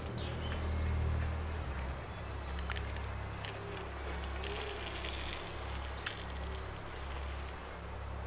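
Forest ambience: clusters of high, repeated chirping calls over a low, steady rumble, with the chirping dying away after about six seconds.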